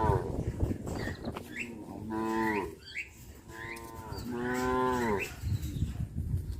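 Cows mooing: a moo trailing off at the start, another about two seconds in, and a longer one about four to five seconds in.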